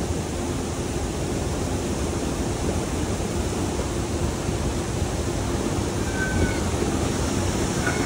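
Steady rushing of a waterfall, a constant, even wash of water noise.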